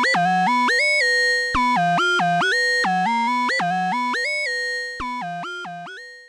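Eowave Orage analog complex oscillator, linearly frequency-modulated by a second oscillator, playing a fast repeating sequence of stepped notes with a glassy FM tone. It fades away over the last two seconds and stops.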